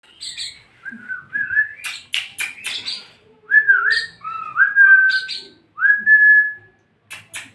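Birds calling: a run of clear whistled notes that dip, rise and then hold steady, interleaved with short, harsh chirps.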